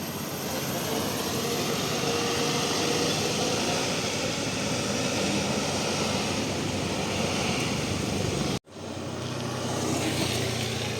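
A large bus passing close by: engine and tyre noise rising about a second in and holding steady, broken by a sudden brief dropout about eight and a half seconds in, a cut in the recording.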